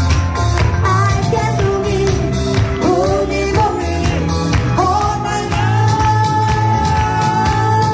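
Pop song with a steady beat, and a woman singing into a handheld microphone over it. She holds one long note through the second half.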